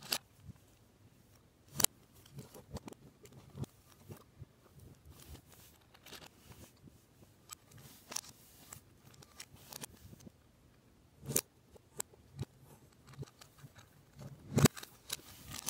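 Plastic Lego Technic pieces being handled and pressed together, giving irregular sharp clicks and snaps with light rattling between them; the loudest snap comes near the end.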